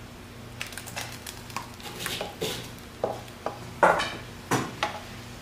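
Irregular clinks and scrapes of a metal utensil against a frying pan and a serving bowl as thickened soup is dished up, with a few louder knocks in the second half.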